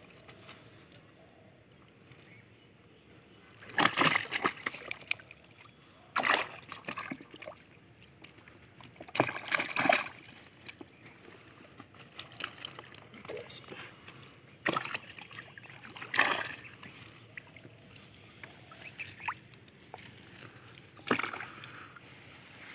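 Live fish flapping in a wet cast net while it is handled to pick them out: several brief bouts of wet slapping and rustling, a few seconds apart, over a quiet background.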